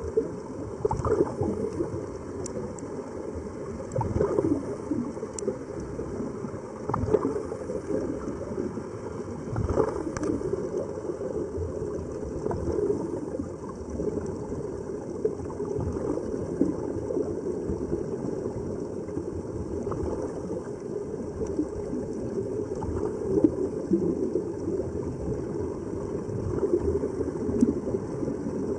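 Muffled underwater bubbling and gurgling from the air escaping out of helmet-diving helmets, with scattered sharp clicks.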